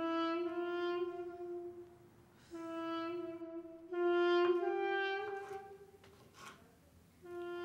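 Film score: a wind instrument plays a slow melody of long held notes, with short pauses between them. A few short sharp sounds come in the second half.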